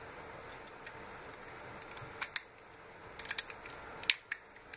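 Utility-knife blade clicking and scraping against the metal barrel of a soldering iron as it is pried apart. The sharp clicks are scattered: two about two seconds in, a quick run a second later, and two more near the end.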